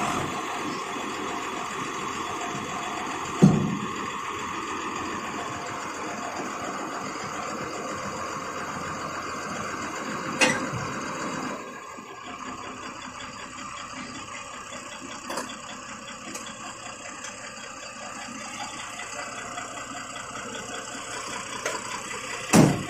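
Dump truck's diesel engine running steadily. Three sharp knocks stand out over it: one early, one near the middle and one near the end. The engine sound drops lower about halfway through.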